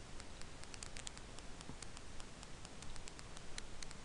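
Faint, rapid ticking clicks, a few each second, over a steady low hiss.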